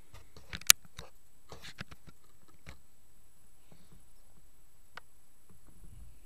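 Faint handling noise: scattered light clicks and taps on the foam model plane and its onboard camera, with one sharper click just under a second in.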